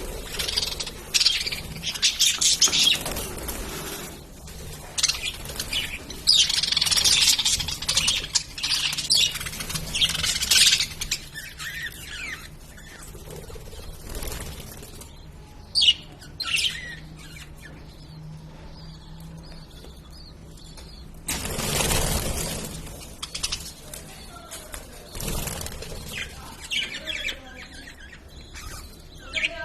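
Lovebirds chirping in rapid, high-pitched bursts, busiest over the first ten seconds or so, then sparser. About two-thirds of the way through, a brief broad rushing noise stands out.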